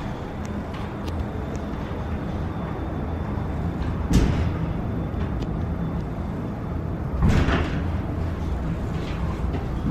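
Falls Incline Railway funicular car running along its track, heard from inside the car: a steady low rumble, with two loud clunks about four and seven seconds in.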